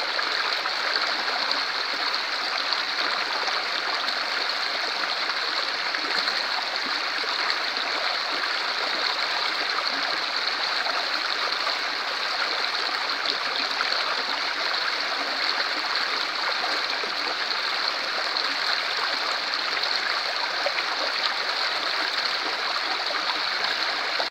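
Shallow, stone-bedded stream running over rocks and small cascades: a steady rush of flowing water.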